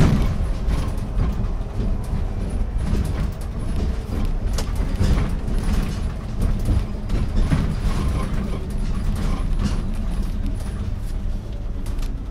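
Interior of an Iveco Urbanway 12 natural-gas (GNV) city bus running: a steady low rumble of engine and road, with a few short rattles and clicks.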